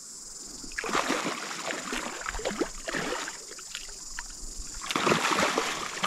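Water splashing in irregular sharp splashes as a hooked brown trout thrashes at the surface while it is brought in. The splashing starts about a second in and grows louder near the end.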